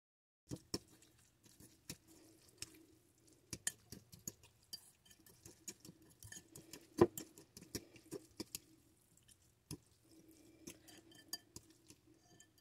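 Plastic fork stirring wet shirataki noodles in a bowl, tapping and scraping against the sides: scattered irregular clicks and light scrapes, the loudest about seven seconds in.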